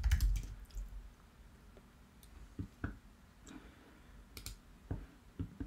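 Computer keyboard keystrokes and mouse clicks, scattered and irregular, a few at a time.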